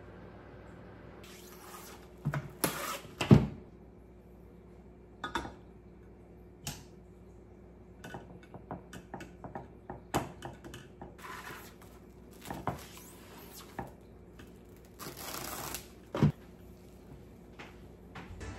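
Kitchen handling noises: a stainless steel mesh colander and a plate being set down and moved on the counter, with a few sharp knocks, then the rustle of a large plastic bag being pulled over them near the end.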